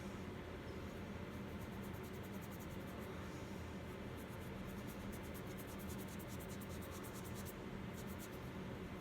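Quick, light scratching strokes, several a second, of a paint tool worked over a reborn doll's vinyl limb, pausing briefly near the end, over a steady low hum.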